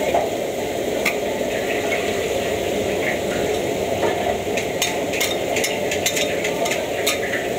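Oil sizzling steadily in a wok of deep-frying food over a gas wok burner. A metal spatula knocks and scrapes against the wok: once about a second in, then a quick run of sharp clinks over the last few seconds.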